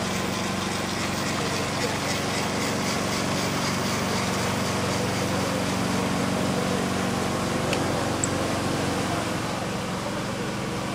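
Two 1:32-scale E.472 electric model locomotives running double-headed with a freight train, their motors and gearing giving a steady hum. A light rhythmic clicking runs through the first half.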